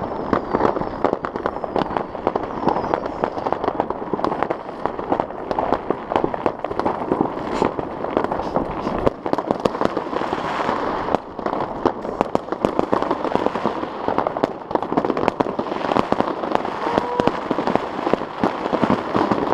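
Fireworks salvos going off all around at once: a continuous, dense barrage of overlapping bangs and crackling pops.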